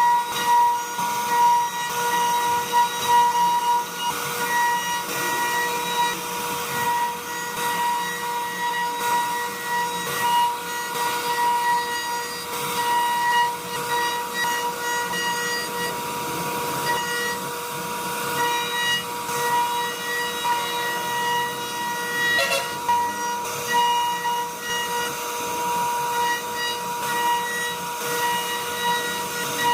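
CNC router spindle running with a steady high whine while its bit carves into mahogany, a rasping cutting noise riding under the whine.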